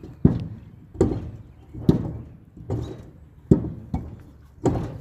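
Heavy blows struck over and over, about seven dull thuds in five seconds at a steady pace, each dying away quickly.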